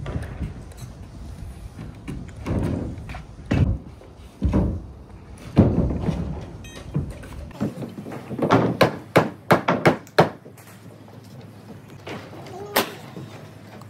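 Plywood subfloor sheets landing on and knocked down onto wooden floor joists with several heavy thuds. These are followed by a quick run of about eight sharp pneumatic nail gun shots fastening the sheathing, and one more shot near the end.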